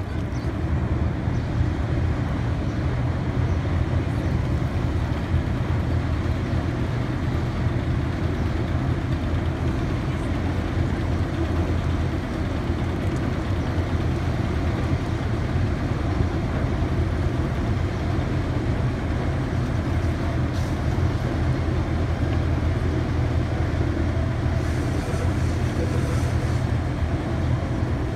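A steady low rumble, like heavy machinery running, with an even noisy hiss over it.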